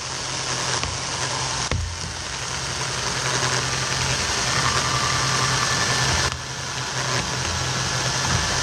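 Remote-controlled chainsaw running steadily as its chain cuts through a tree limb, dipping briefly in level about two seconds in and again about six seconds in.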